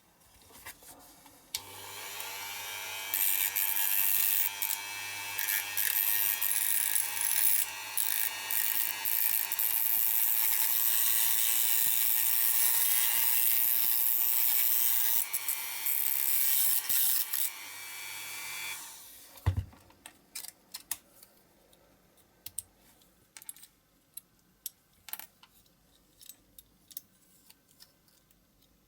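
A small electric power tool runs for about seventeen seconds under load, with brief dips, on parts of a diecast toy model. It stops with a thump, followed by scattered light clicks and taps of small metal parts being handled.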